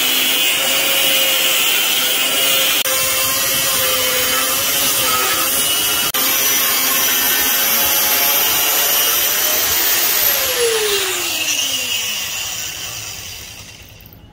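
Angle grinder with a thin cut-off disc cutting through hardened bearing-race steel, a steady high whine over harsh grinding noise. About ten seconds in the motor stops and its pitch falls as the disc spins down, fading out near the end.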